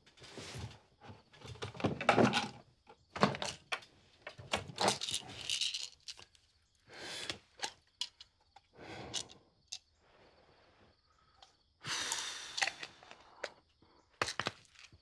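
Bedsheets and covers rustling, with soft thumps, as a person shifts and fumbles about in bed, in uneven bursts with short quiet gaps between them.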